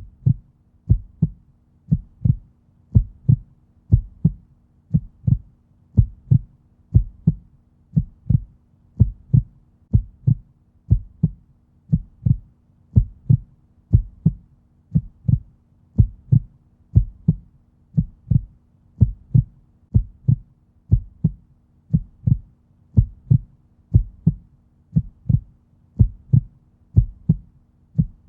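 Heartbeat sound: a steady lub-dub of two low thumps repeating about once a second, at a resting heart rate.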